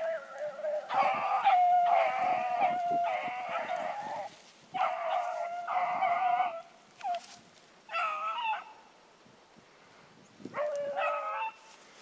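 Rabbit hounds baying: several long, drawn-out bawls with short breaks between them. The young dogs are giving tongue as they trail a rabbit.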